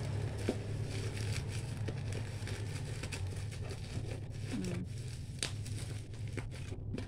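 Bubble wrap crinkling and rustling as it is wrapped around a light bulb and pushed into its cardboard box, with scattered small clicks and taps.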